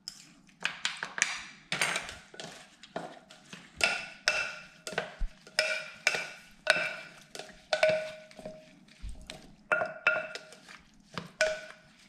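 A spoon stirring sauce in a bowl, knocking against its sides about twice a second with short ringing clinks.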